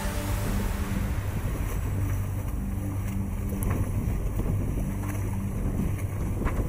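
Wind buffeting the microphone over open sea, with splashing water and the low steady hum of a boat engine underneath.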